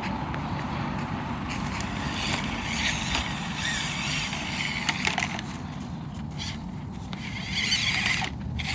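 Axial SCX24 micro RC crawler's small electric motor and gears whirring in stop-start spurts as it creeps and balances over rocks, with a few light clicks.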